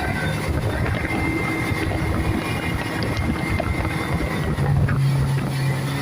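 Speedboat engine running at a steady pitch over a constant rush of wind and water noise.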